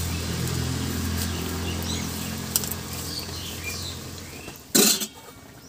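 A steady low motor hum, with birds chirping over it. The hum stops about four and a half seconds in, and a loud sharp clatter follows just after.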